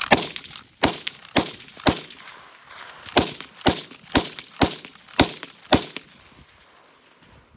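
Uberti 1873 Winchester short rifle, a lever-action in .357 Magnum/.38 Special, fired rapidly about ten times in six seconds, around two shots a second with a short break after the fourth shot, as the lever is worked between shots.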